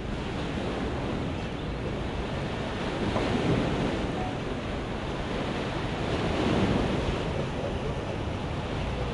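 Water rushing and churning around a cruise ship tender manoeuvring at a pier, with wind on the microphone. The rush swells twice, about three and six seconds in.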